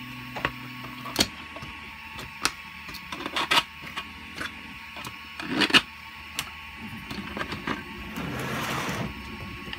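Hard 3D-printed plastic parts clacking and knocking as they are lifted, separated and set down, with a dozen or so sharp clacks, the loudest about six seconds in, and a scraping slide of plastic on the mat near the end.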